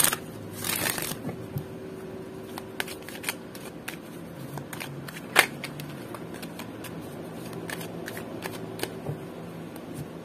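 Oracle cards shuffled by hand: a dense riffling rustle in the first second, then scattered soft taps and slides of cards, with one sharper click about halfway through.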